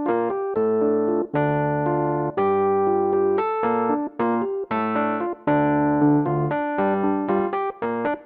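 Piano music: a series of chords, each struck and held for under a second to about a second, with short breaks between them.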